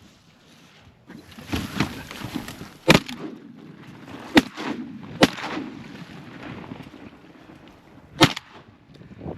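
Four shotgun shots fired at incoming Canada geese: three over about two and a half seconds, then a fourth about three seconds later.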